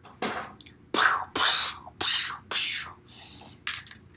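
A child making a run of short breathy, whispered mouth noises, about seven in a row, with one longer hiss near the middle.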